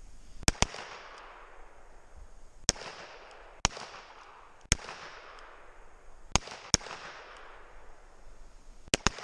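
Handgun shots fired in a timed series, about nine sharp reports at irregular intervals, some in quick pairs. Each shot is followed by a long echo that fades away.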